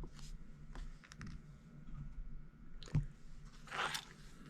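Faint handling of small hobby parts: a few light clicks and taps, the sharpest about three seconds in, and a brief rustle near the end.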